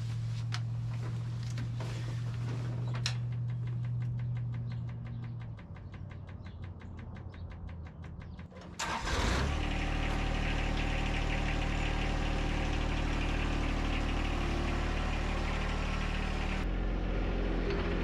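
A steady low engine hum with a few metal clanks stops about five seconds in and gives way to a fast ticking. About nine seconds in, the John Deere 1025R compact tractor's three-cylinder diesel starts and then runs steadily, clearly louder.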